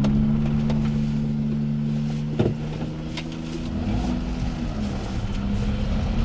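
Japanese mini truck's small engine running steadily at low speed, heard from inside the cab, with a single short knock about two and a half seconds in.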